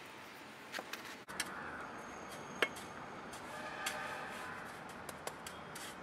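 A few short, sharp stone clicks and knocks as rocks are set down and tapped into sand and soil, the loudest about two and a half seconds in, over a steady background hiss.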